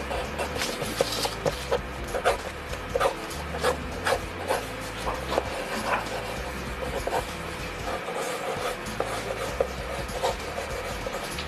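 Pencil graphite scratching across paper in quick, irregular sketching strokes, over a steady low hum.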